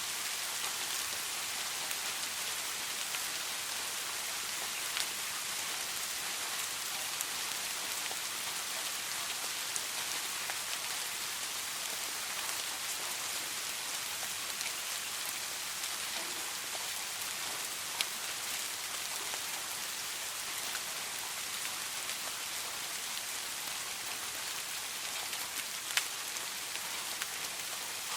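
Steady soft rain: a constant high hiss of falling rain with scattered individual drop ticks, a few sharper drops standing out now and then.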